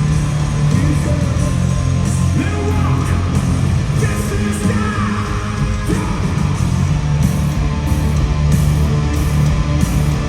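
Hard rock band playing live at full volume: heavy guitars, bass and drums, with a singer's voice over the music.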